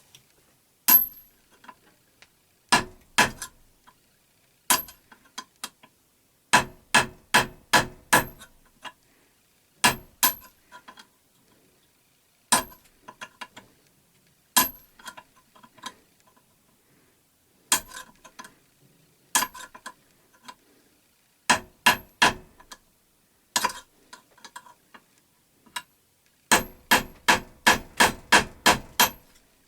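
Hammer tapping on metal, ringing strikes coming singly and in quick runs with a longer run of about eight near the end. It is tapping on a rust-seized fastener on a belt grinder to shock it loose after oiling.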